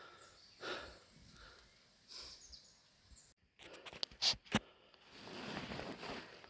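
Faint outdoor rustling noise, with a quick cluster of sharp clicks or knocks about four seconds in.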